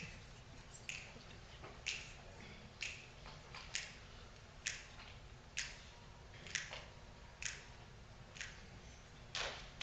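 Finger snaps from a group of body-percussion performers keeping a slow, steady beat of about one snap a second, with softer snaps falling between the main beats.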